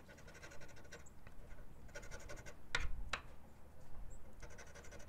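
Rapid scraping strokes rubbing the coating off a scratch-off lottery ticket, in short spells with brief pauses, with two sharp ticks about three seconds in.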